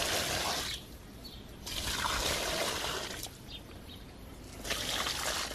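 Watering can pouring water onto squash plants' leaves and the soil, in three pours with short pauses between them.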